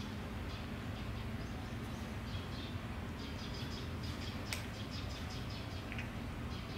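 A cat chewing crunchy dry dental treats: clusters of quick, light, irregular crunches, with a couple of sharper clicks.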